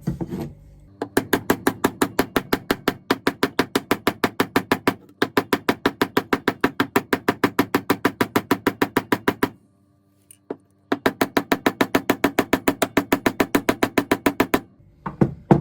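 Rapid, evenly spaced hammer taps, about four to five a second, each with a short ring, driving wheels onto a steel axle. The taps come in long runs with abrupt breaks, including a silent gap past the middle.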